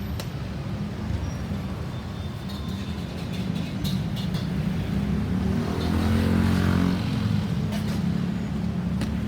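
Road vehicle engines running, with one vehicle passing close by, loudest about six and a half seconds in.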